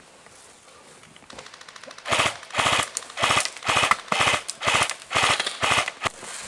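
Airsoft rifle firing about eight short full-auto bursts close by, roughly two bursts a second, each a fast rattle of shots. Before them, in the first two seconds, fainter rapid airsoft fire rattles farther off.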